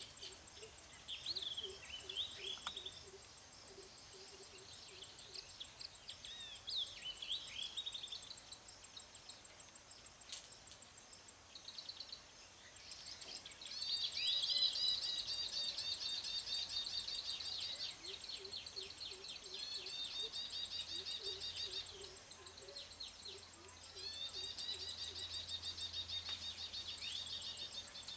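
Baya weaver birds calling: scattered high chirps, then long, fast, buzzy chattering song phrases in two bouts, the second near the end. A low, rapidly pulsing call sounds faintly in the background at times.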